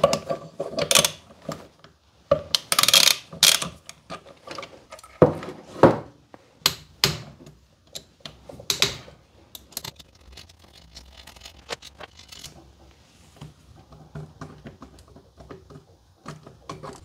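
Metal parts of a Fiorenzato/Sanremo Allground coffee grinder clicking, knocking and rattling as its burr assembly is worked loose and lifted out by hand, without tools. The knocks come in quick clusters, loudest in the first few seconds, then thin out to lighter rattles.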